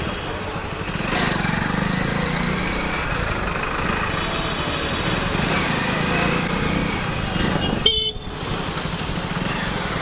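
Motorcycle engine running steadily while riding through city traffic, with a short horn toot near the end.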